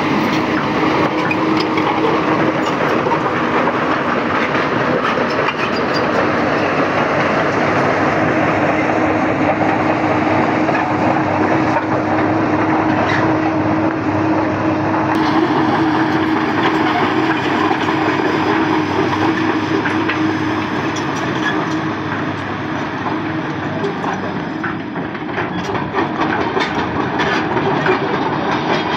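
Komatsu PC200 hydraulic excavator's diesel engine running steadily with a steady hum, along with scattered clanks.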